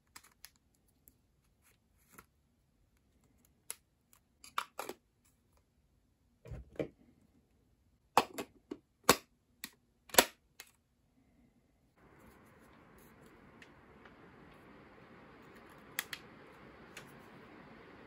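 Plastic and metal clicks and knocks as the Autobot VX handheld vacuum's stainless mesh filter and clear dust bin are handled and fitted together, with several sharp snaps about eight to ten seconds in. About twelve seconds in a faint steady hiss begins and carries on.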